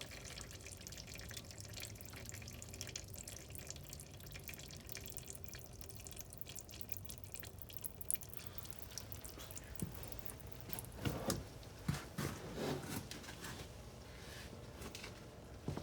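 Warm engine oil draining from a 2015 Corvette Stingray's oil pan into a drain pan: a steady trickle with many small drips and splashes. A few louder knocks come about two-thirds of the way through.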